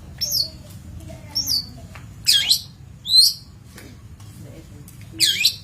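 Long-tailed shrike (cendet) calling: five short, sharp, high chirps that sweep down in pitch, about a second apart, the later ones louder.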